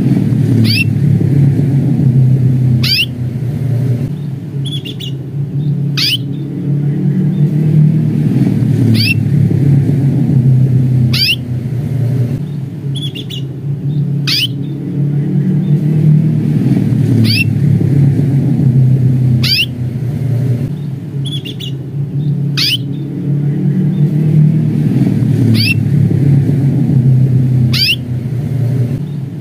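Domestic canary giving short, sharp rising 'cuit' call notes, one about every two to three seconds, with a few fainter short notes between them. A loud, steady low rumble runs underneath and is louder than the calls.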